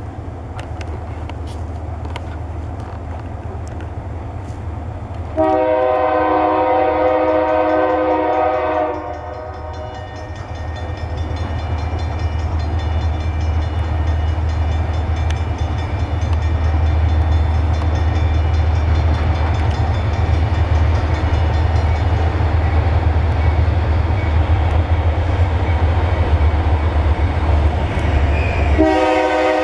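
Diesel freight locomotive approaching, its engine rumble growing steadily louder. It sounds one long multi-tone horn blast beginning about five seconds in and lasting some three and a half seconds, and starts another horn blast just before the end.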